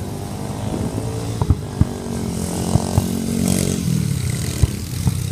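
Motorbike engines running in traffic, a steady droning hum with several short sharp pops scattered through it.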